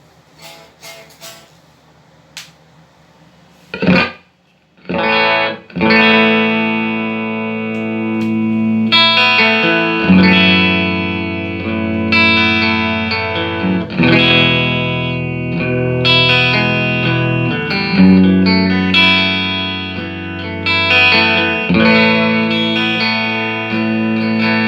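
Electric guitar played through a Marshall JCM2000 DSL201 valve combo amp, which has just been repaired. A few faint plucks, a loud chord near four seconds, then ringing chords changing every few seconds.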